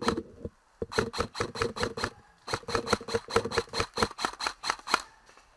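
Airsoft gun firing rapid strings of shots, about six a second, in three runs with short pauses between them.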